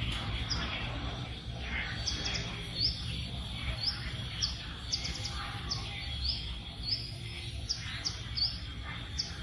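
A forest bird chirping repeatedly: short, high, rising chirps about every half second, over a steady high-pitched hum and a low rumble.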